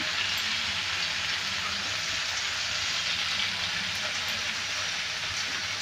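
Potato and aubergine pieces frying in oil in a pan, with a steady, even sizzle.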